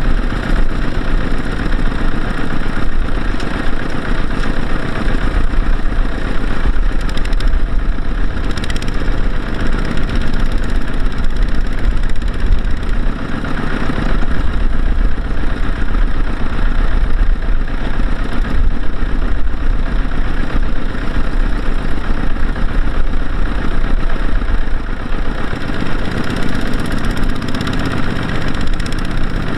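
Two-wheel walking tractor's single-cylinder diesel engine running steadily and loudly under load, driving its wheels in mud while towing a trailer heavy with rice sacks that is bogged down.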